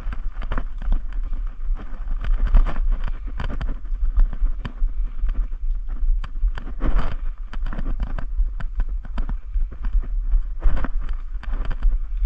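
Footsteps crunching quickly and unevenly through dry leaves and twigs on a forest slope, over a steady low rumble from wind or handling on the body-worn camera.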